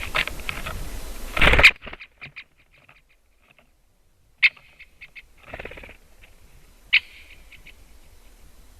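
Great spotted woodpecker giving sharp, single short calls, twice a couple of seconds apart, with softer ticks between them. A burst of noise near the start cuts off abruptly about a second and a half in.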